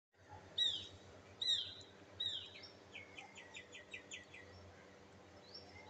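A bird calling: three loud falling whistles about a second apart, then a quick run of about seven short notes, over a steady low background hum.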